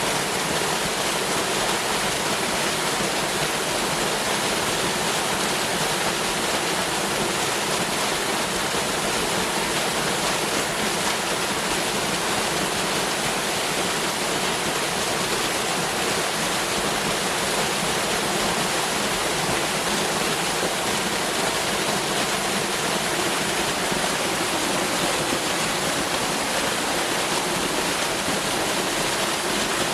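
Waterfall: water pouring down in a steady, even rush with no break or change.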